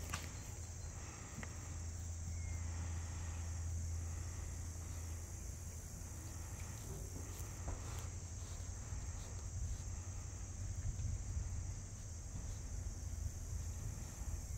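Steady high-pitched chorus of insects with a steady low rumble beneath it.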